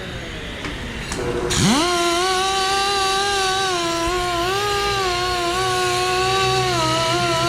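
Electric motor of a tire-shop wheel machine whining as it spins the wheel. It winds down at the start, spins up again with a quick rising whine about a second and a half in, then runs steadily, wavering slightly in pitch.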